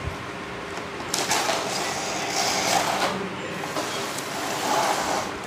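Rustling and crinkling of a clear plastic blister tray being pulled out of a cardboard toy box, starting about a second in and going on in uneven bursts until near the end.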